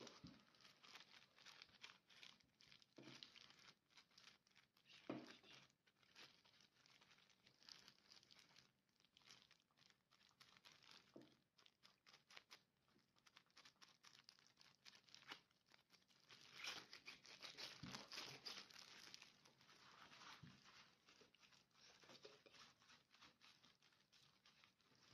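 Faint crinkling and rustling of disposable plastic gloves as hands wrap filling in rounds of pastry dough and shape them, with a busier stretch of rustling a little past the middle.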